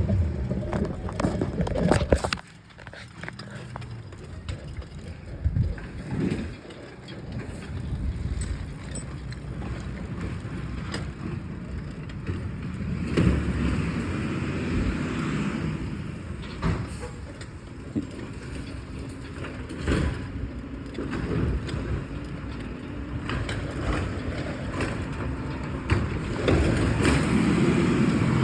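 Heavy truck engine running, its sound rising and falling, with scattered knocks and clatters.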